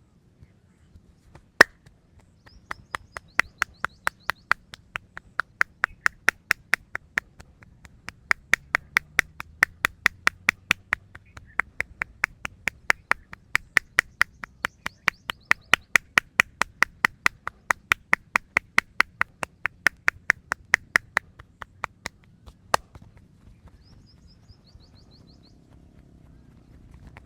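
Hand claps of a traditional Indian head massage: one loud clap, then a long, even run of sharp claps at about three a second that stops about twenty seconds later. A bird chirps faintly.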